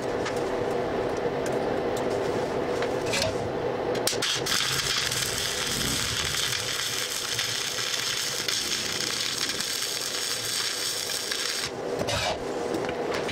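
A brush scrubs and scrapes the steel workpiece, then, about four seconds in, a stick (arc) welder strikes an arc and crackles and sizzles steadily for about eight seconds, stopping abruptly near the end.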